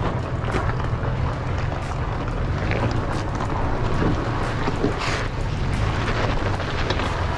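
Wind buffeting the microphone over an off-road truck's engine running, with scattered clicks and knocks through it.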